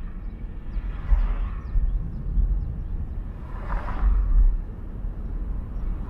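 Road and wind noise of a moving car: a steady low rumble with a hiss that swells and fades about a second in and again about four seconds in.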